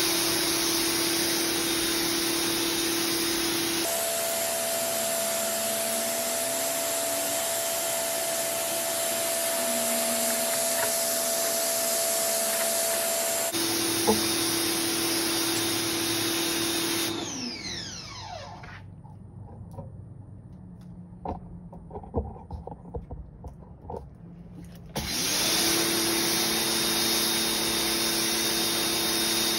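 Ryobi 1600 PSI electric pressure washer running, a steady motor hum under the hiss of the water jet on concrete. About 17 seconds in the trigger is let go and the motor winds down in pitch, leaving a quieter stretch with a few clicks and knocks. About 25 seconds in it starts up again and the spraying resumes.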